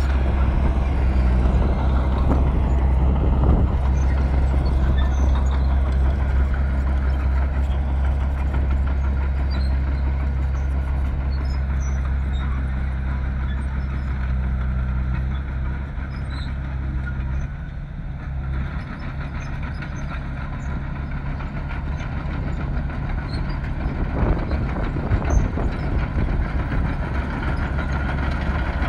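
Bulldozer's heavy diesel engine running steadily under load. Its deep note drops about two-thirds of the way through, and a few sharp knocks come near the end.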